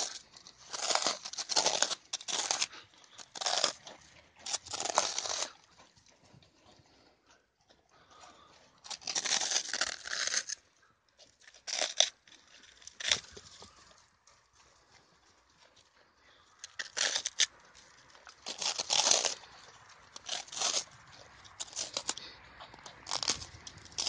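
Ouessant and Cameroon ewes biting and tearing at a crusty baguette held in the hand, in irregular bouts of crunching and ripping with short quiet gaps between.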